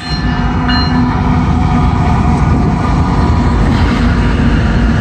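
Norfolk Southern diesel locomotives of a freight train passing at close range, a loud steady low rumble of engines and wheels. A few faint high steady tones sound within the first second.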